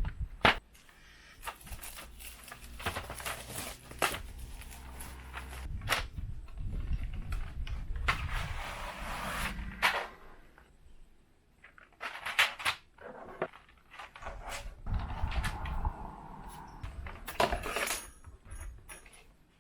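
Hands working at packaging to open it: irregular sharp clicks and knocks with stretches of rustling.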